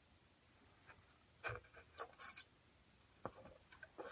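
Faint ticks and light scraping of small hand tools working on a circuit board. The short sounds come in a few scattered clusters rather than a steady run.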